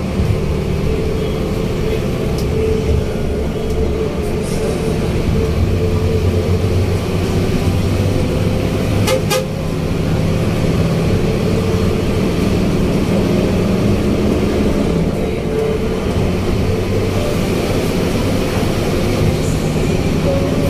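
Intercity bus's diesel engine running under way, heard from inside the cab at the front, its note shifting with speed and gears, with horn toots among the engine noise.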